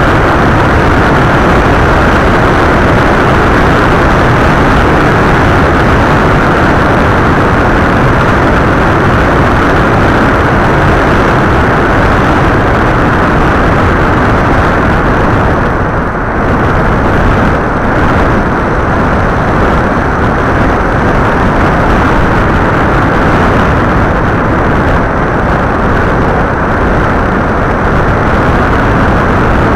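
Loud, steady rush of wind and motor noise picked up by an FPV aircraft's onboard camera in flight. It dips briefly and turns a little duller about sixteen seconds in.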